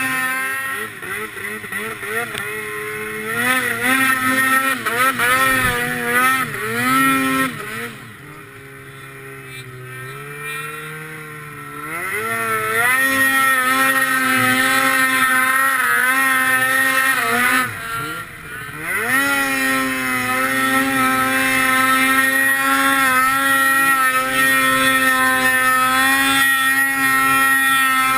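Snowmobile engine pulling through deep snow, its pitch rising and falling with the throttle. About a third of the way in it eases off to a lower, quieter run for a few seconds, then picks up again, dips briefly, and holds high steady revs through the last third.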